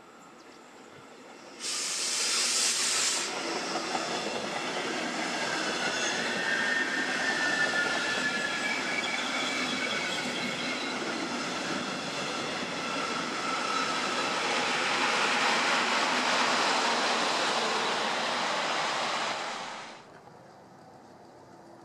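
Locomotive-hauled Regional-Express train of double-deck coaches running along the platform track. A sudden loud hiss comes about two seconds in, then a long steady rush of wheels on rail with faint whining tones. The sound cuts off abruptly near the end.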